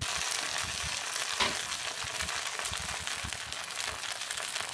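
Slices of sourdough bread sizzling as they toast in a cast-iron skillet, a steady hiss dotted with fine crackles and one slightly louder crackle about a second and a half in.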